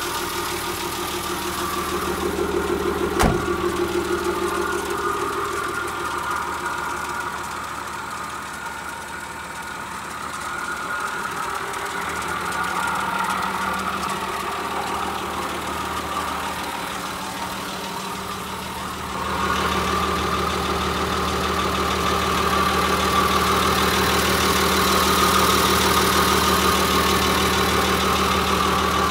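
Nissan Civilian bus's TD42 inline-six diesel idling steadily. There is a single sharp click about three seconds in, and the engine gets louder about two-thirds of the way through.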